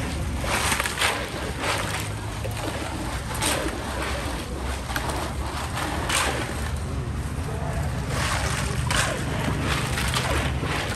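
Ice cubes rattling and iced drink sloshing as a plastic ladle scoops from a tub of ice and pours into a plastic cup, in short clattering bursts every second or few. Under it runs a steady low traffic rumble with background voices.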